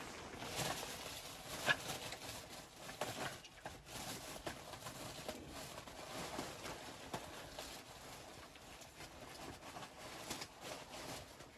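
Irregular crunching and scuffing in snow, with scattered sharper crackles, the loudest about a second and a half in.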